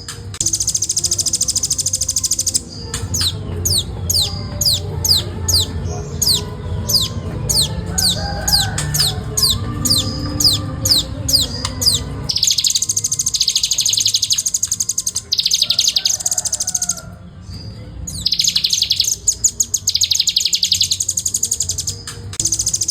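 Velvet-fronted nuthatch singing: long, dense, high rattling trills, broken in the first half by a run of about two dozen sharp, falling notes, two to three a second.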